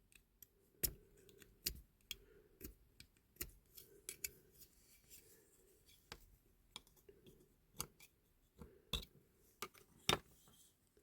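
Irregular sharp metallic clicks with faint scraping between them, from a small hand tool worked at the rivet holding the boot lid of a diecast Matchbox Volkswagen Beetle; the rivet is nearly cut free.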